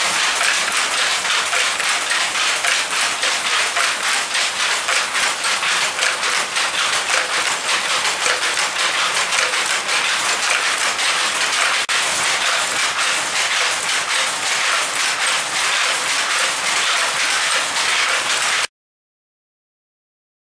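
Power loom weaving terry towel cloth, running with a fast, even mechanical clatter as its sley beats up each pick. The clatter cuts off suddenly about two seconds before the end.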